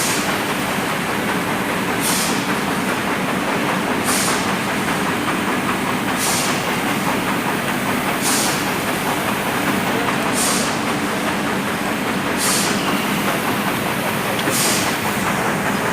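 Automatic polyurethane foam filling machine running with a steady hum, and a short hiss about every two seconds as it cycles.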